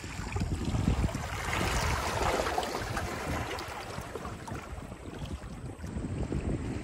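Small lake waves lapping and washing over shoreline boulders, with a fuller wash about two seconds in, and wind buffeting the microphone throughout.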